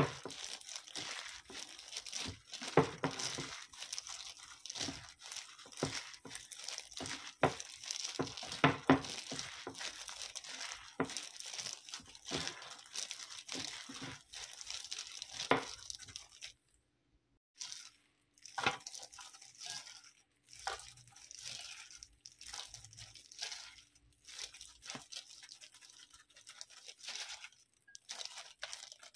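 Clear disposable plastic glove crinkling and crackling as a hand mixes and squeezes sushi rice. The crackling is dense for the first half, breaks off briefly, then comes back in sparser bursts as the rice is pressed into a tray.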